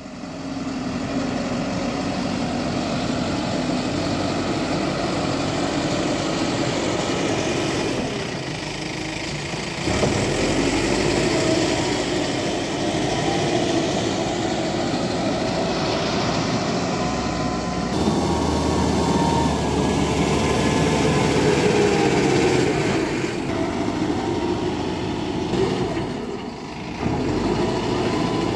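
Mahindra G75 motor grader's diesel engine running under load while grading a dirt road, its pitch wavering a little. The sound steps up in level about a third of the way in and dips briefly near the end.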